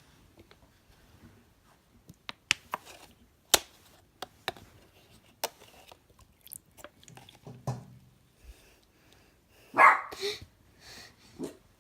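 Scattered clicks and knocks of things being handled, then a loud, short call from a pet animal about ten seconds in, followed by a lower, weaker one near the end.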